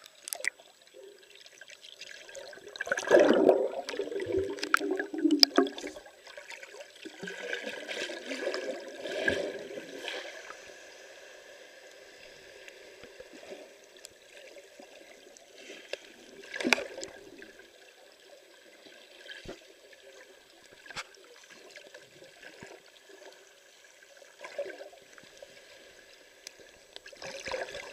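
Water gurgling and bubbling around a camera held underwater, with scattered sharp clicks. The loudest gurgling comes a few seconds in, and there is a sharper knock about halfway through.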